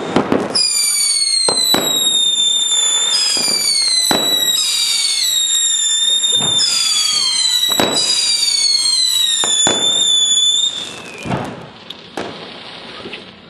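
Ground firework fountain spraying sparks with a loud whistle. The whistle restarts with a sharp pop about every one and a half seconds, each time sliding slightly down in pitch. The fountain burns out about eleven seconds in, leaving a faint hiss.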